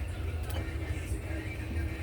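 Engine running with a steady, pulsing low rumble, with music playing over it.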